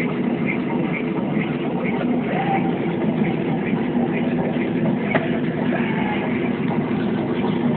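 Hydraulic excavator's diesel engine running steadily, heard from inside the cab.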